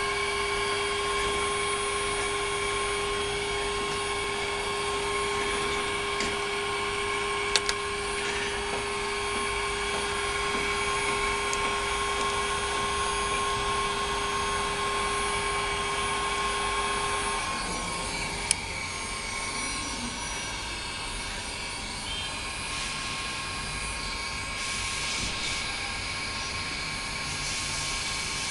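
A steady mechanical whir with several held tones. The lowest tone stops about two-thirds of the way through, and there are two light clicks.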